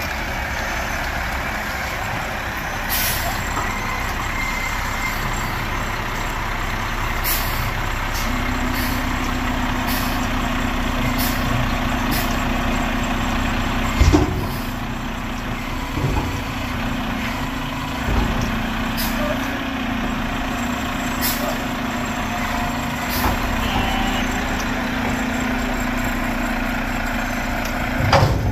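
A Mack MRU garbage truck's diesel engine runs throughout, held at a steady higher speed from several seconds in while the Heil front-loader's hydraulic arms work. Scattered sharp metal knocks and bangs come over it, the loudest about halfway through and just before the end.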